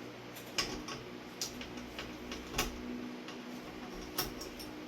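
A few sharp, irregular clicks and taps of tools and metal hardware being handled while a ceiling fan is taken down, over a faint low steady hum.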